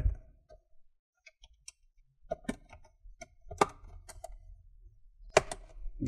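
Plastic retaining clips of an Asus X507M laptop's bottom cover snapping loose as a guitar pick is twisted in the seam: several sharp clicks, the loudest near the middle and near the end, with fainter ticks of the plastic case between them.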